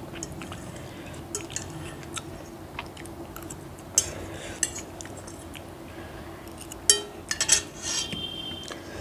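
Metal fork scraping and clinking against a plate while picking up the last noodle scraps: scattered light taps, a sharper clink about four seconds in and a quick cluster of clinks near seven to eight seconds.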